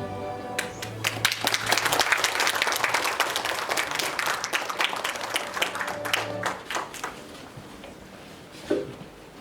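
Audience applauding, starting about half a second in as background music ends, then thinning out and stopping after about seven seconds.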